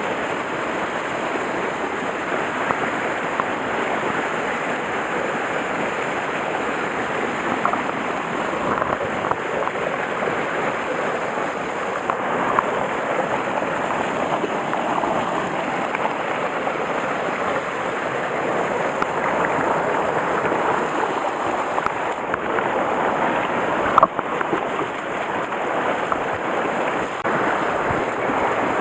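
Mountain stream water rushing and splashing over rocks, a steady full wash of noise. Near the end a single sharp knock.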